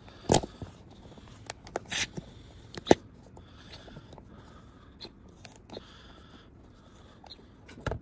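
A fat 2.2-inch rubber RC crawler tyre being stretched by hand over a plastic wheel: rubbing and scraping of rubber, with scattered clicks and a few louder sharp knocks in the first three seconds.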